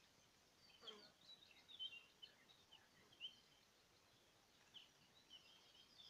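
Faint birdsong: scattered short, high chirps and twitters, clustered in the first half and again near the end.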